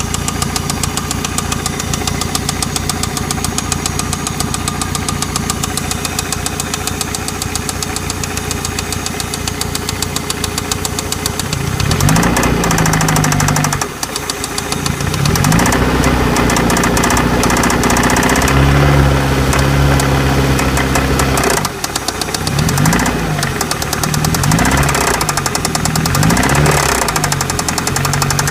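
Suzuki DF115 four-stroke outboard engine idling with a rapid, even knocking tick. About twelve seconds in it is revved up, held at higher revs, and then blipped up and down several times. The owner cannot identify this strange noise, even though the oil pressure is good at about 4 bar.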